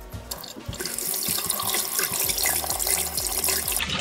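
Kitchen faucet running into a stainless steel sink, the stream splashing over hands and a makeup sponge being rinsed under it. The flow starts about a second in and runs steadily after that.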